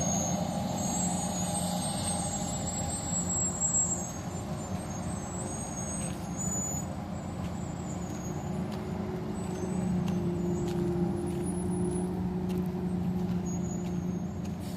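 Heavy diesel machinery running steadily at a corn silage harvest, a continuous engine drone that eases slightly about four seconds in.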